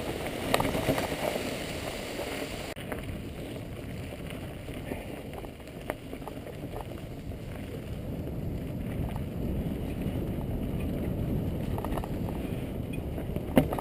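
Mountain bike descending a rough singletrack: a steady rumble of wind on the microphone and tyres over the ground, with scattered clicks and knocks from the bike and one sharp knock near the end. A brighter hiss in the first few seconds cuts off abruptly about three seconds in.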